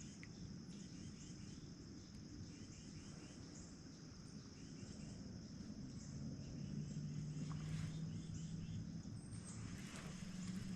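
Insects droning steadily at a high pitch, with groups of faint quick chirps over it. A low steady hum comes in about six seconds in and fades near the end.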